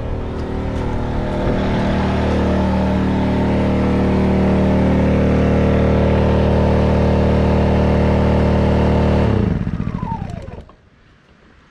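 Champion 2200 W petrol inverter generator, a small four-stroke engine, running steadily under a charging load of about 1650 watts and getting louder over the first few seconds. About nine seconds in it is switched off and runs down within a second with a falling whine.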